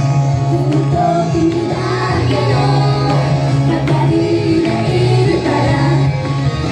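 Japanese idol pop song performed live: young women singing into microphones over a recorded backing track with a steady bass line.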